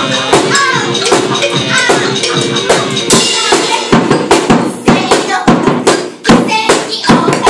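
Live band playing: a small drum kit of snare and cymbals struck in a fast, busy rhythm while women sing into microphones over it, with a cymbal crash about three seconds in.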